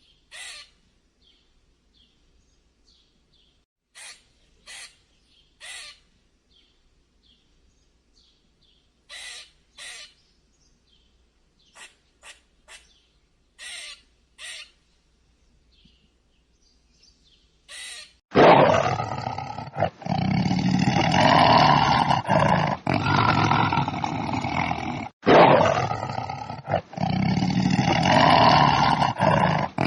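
Animal calls: a series of short, high-pitched chirps or squeaks spaced irregularly for the first eighteen seconds or so, then loud, long animal calls broken by short pauses.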